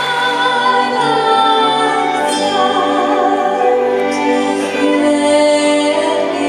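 A soprano singing in operatic style with a small orchestra of strings and piano, holding long notes with vibrato.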